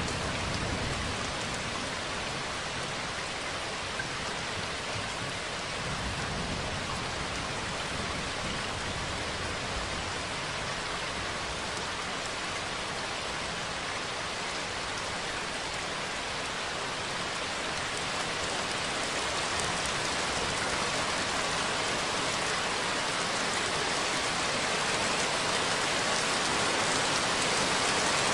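Steady heavy rain, with a low rumble of distant thunder near the start and again around six seconds in; the rain grows slightly louder toward the end.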